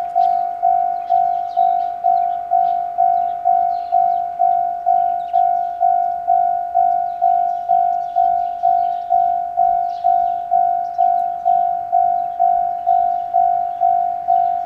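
Japanese level crossing warning bell ringing steadily, one clear tone struck about twice a second: the crossing's alarm for an approaching train.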